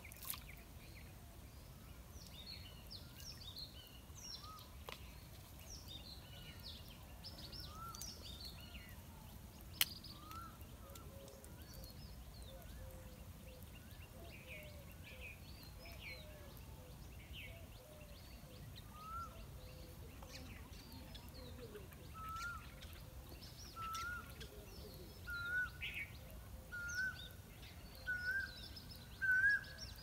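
Birds chirping steadily over a low background rumble. From about two-thirds of the way through, one bird repeats a short rising call about once a second, each call a little higher and louder than the one before. A sharp click comes right at the start and another about a third of the way in.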